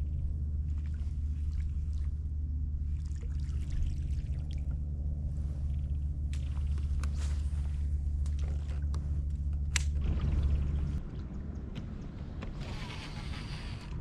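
A motor's steady low hum under water lapping and small clicks, cutting off about eleven seconds in, followed by a short rush of water noise.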